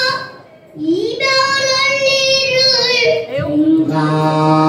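A young girl singing pansori solo. A long held note wavers with vibrato, then a short breath, then her voice slides up into another long held note and settles on a lower held note near the end.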